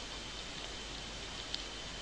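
Steady background hiss of a low-quality home recording, with one faint high tick about one and a half seconds in.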